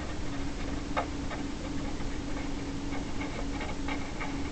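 Felt-tip marker writing on paper: a string of light scratches and ticks from the pen strokes, with a faint steady hum behind them.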